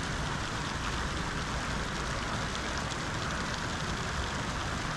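Steady hiss of rushing water, even and unchanging throughout.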